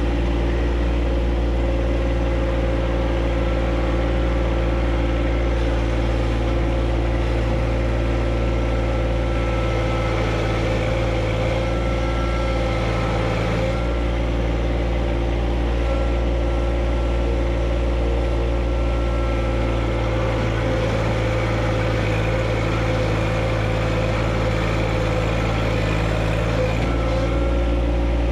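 John Deere 1025R compact tractor's three-cylinder diesel engine running steadily, with a faint high whine that comes and goes.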